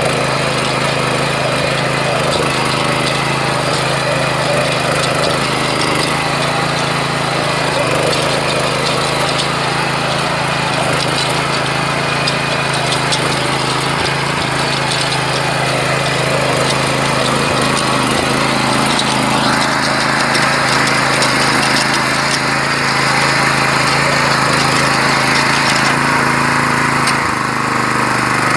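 Kirloskar 7 HP walk-behind power tiller's small air-cooled single-cylinder engine running steadily under load, its rotary tines churning through soil. The sound grows louder and brighter about two-thirds of the way through.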